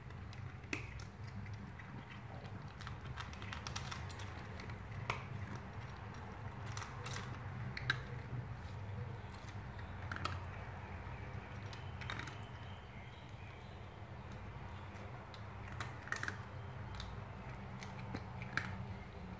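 Cat crunching dry kibble from a stainless-steel bowl: irregular sharp crunches and clicks, over a steady low hum.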